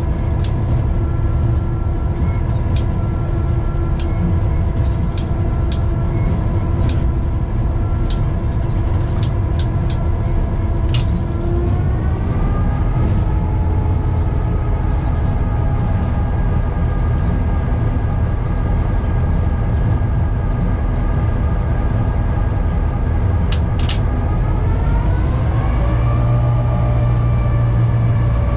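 An EMD F7 diesel locomotive's 16-cylinder 567 prime mover running under load, heard from inside the cab. It picks up revs twice, about twelve seconds in and again near the end, its pitch stepping up each time. Scattered sharp clicks sound over the running engine in the first half.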